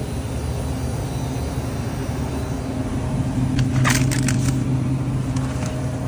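Steady low hum of a running vehicle, with a short cluster of crackling clicks about four seconds in.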